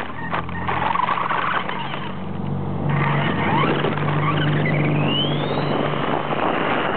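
Electric RC touring car heard from its own on-board camera: motor and gear whine with tyre and road noise on rough asphalt. A whine rises in pitch from about four to six seconds in as it speeds up, over a low steady hum.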